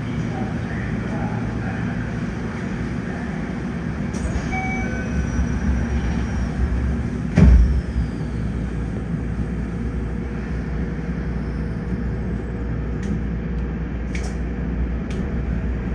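Subway train standing at the platform, heard from inside its cab: its equipment hums steadily. A short loud burst comes about halfway through, and near the end the train starts to pull away, with a few faint clicks.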